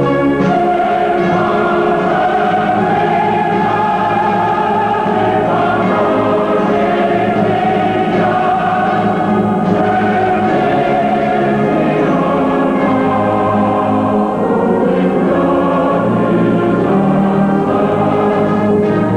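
Background choral music: a choir singing long held chords that change every few seconds.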